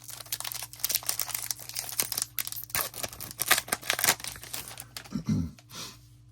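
A hockey card pack wrapper being torn open and crinkled: a dense run of sharp crackling for about five seconds, dying away near the end.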